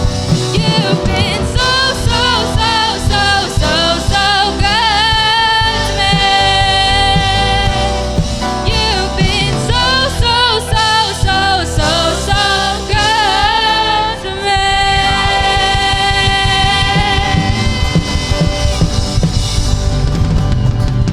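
Gospel song with a band: singers trade wavering vocal runs and long held notes over drum kit and guitar, and the drums come forward near the end.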